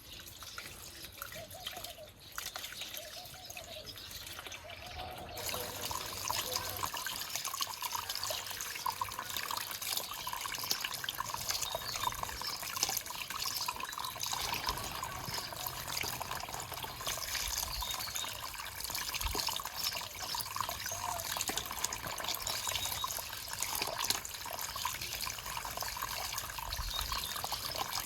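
Water running and trickling with a dense, steady splashing, growing louder about five seconds in.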